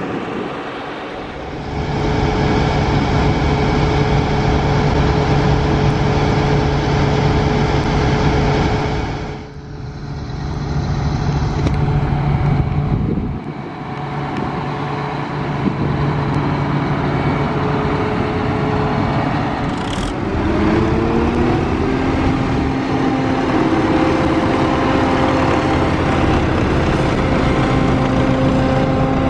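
Heavy diesel farm machinery, combine harvesters and tractors, running under load at the corn harvest with a steady engine hum. The sound shifts abruptly a few times, and about two-thirds of the way through an engine's pitch steps upward.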